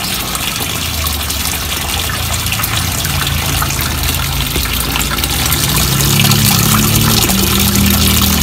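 American Home top-load washing machine filling with water at the start of a wash cycle: a steady rush of water, slowly getting louder, with a low hum that grows stronger about six seconds in.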